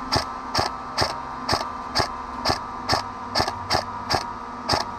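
Upgraded M4 airsoft electric gun (AEG) firing single shots on semi-auto: eleven sharp cracks at about two a second, a little uneven in spacing, over a steady faint hum.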